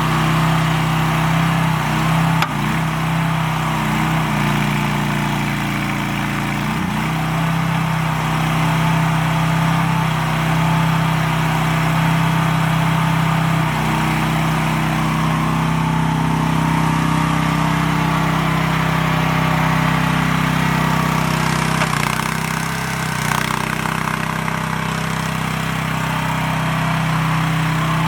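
Small engine of an AGT Industrial H15 mini excavator running steadily, its note shifting slightly at times, with a couple of short knocks early on.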